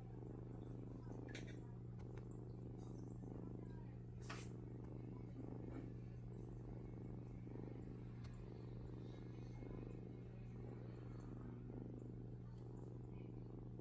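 Domestic cat purring steadily, swelling and easing in pulses about once a second, a low rumble like a broken old refrigerator.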